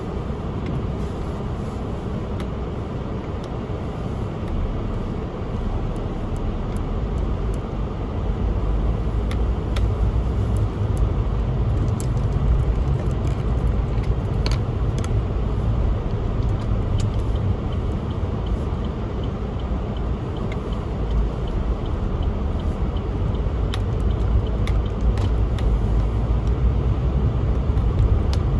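A car driving on a snowy road: a steady low rumble of engine and road noise that grows louder about eight seconds in, with scattered faint ticks over it.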